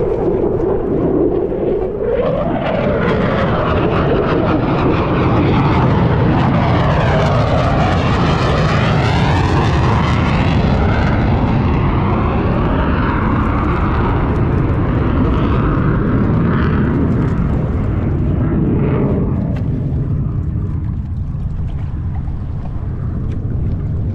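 Two RAAF F-35A fighter jets' afterburning turbofan engines passing low overhead. A very loud jet rush with sweeping, phasing tones, peaking several seconds in and easing off near the end.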